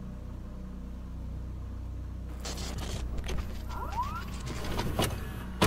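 Dark, low droning sound-design bed with static hiss coming in about two seconds in, a short rising tone a little later and sharp hits near the end: a horror compilation's transition into a numbered entry.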